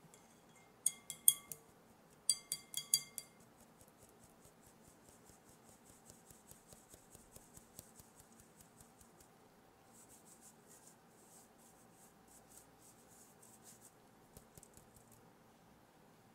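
Fine-mesh stainless steel sieve tapped against the rim of a glass mixing bowl: two quick runs of ringing taps. Then a long stretch of faint, rapid, high ticking as flour is shaken through the mesh.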